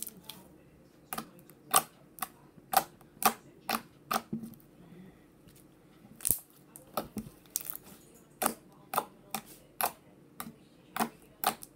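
Clicky slime being squeezed and pressed with the fingers, giving a string of sharp clicks and pops, roughly two a second, with a short pause around the middle.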